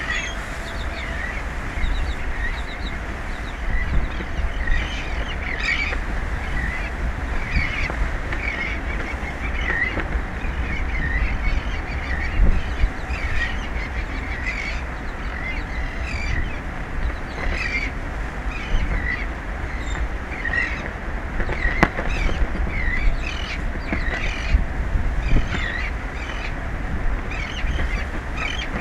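Many short, honk-like animal calls repeating about once or twice a second over a steady low rumble.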